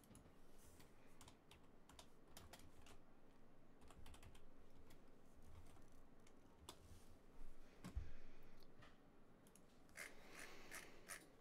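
Faint, irregular clicking of typing on a computer keyboard, with one dull thump about two-thirds of the way through.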